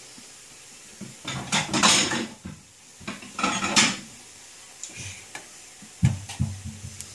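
Plates clattering and scraping against each other as one is lifted out of a kitchen cupboard, in two main bursts about one and three and a half seconds in, then a couple of sharp knocks near the end as it is set down.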